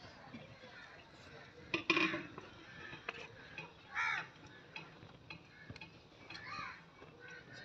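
Wood fire crackling under a cooking pot, with a sharp metallic clink about two seconds in, of a metal ladle against the aluminium pot. Two short calls, near four seconds and again past six seconds.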